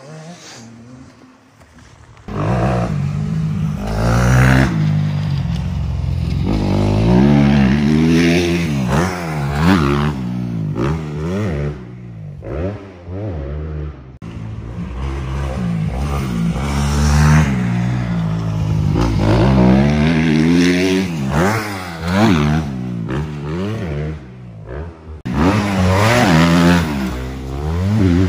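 Suzuki RM-Z250 motocross bike engine revving up and falling off again and again as the rider accelerates and backs off around the dirt track. It starts loud about two seconds in and fades briefly twice, as the bike passes farther off.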